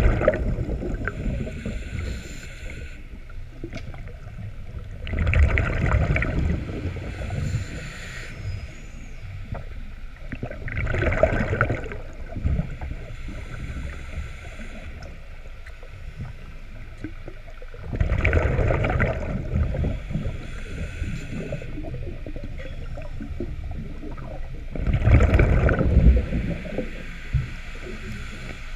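A scuba diver breathing through a regulator underwater: five loud bursts of exhaled bubbles about every six to seven seconds, with a quieter hiss between breaths.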